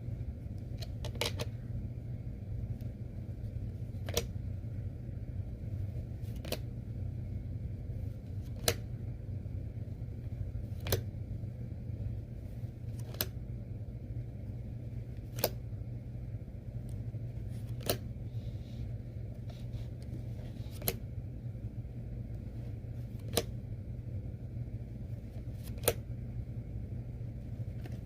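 Magic: The Gathering cards being laid down or flipped one at a time: a sharp card snap or tap every two to three seconds, over a steady low hum.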